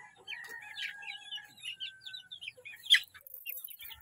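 A flock of half-grown chickens cheeping and clucking: many short, high chirps with some longer held peeps. One sharp click sounds about three seconds in.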